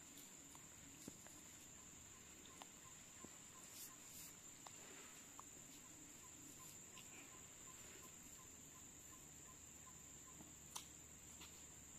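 Near silence with a faint, steady high-pitched insect chirring, broken by a few soft clicks.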